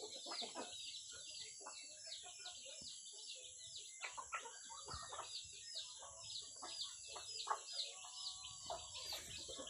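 Chickens clucking, with many short high chirps repeating rapidly throughout, over a steady high hiss.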